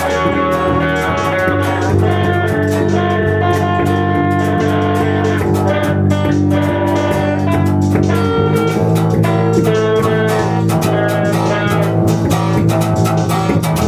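Guitar music with a bass guitar underneath, playing continuously at an even loudness.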